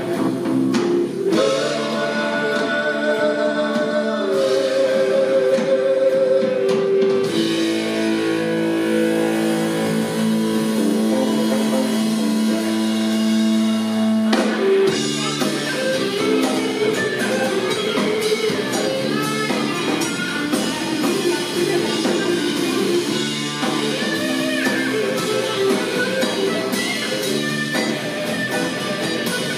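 Rock band playing live: electric guitar, electric bass and drum kit, with long held sung notes over the first half. About halfway the singing stops and a busier instrumental passage follows.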